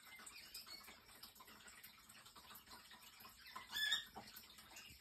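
A single short, high-pitched chirping call about three and a half seconds in, over faint room noise.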